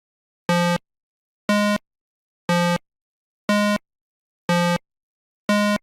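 Six identical electronic beeps, one each second, each a short, low, buzzy tone of the same pitch.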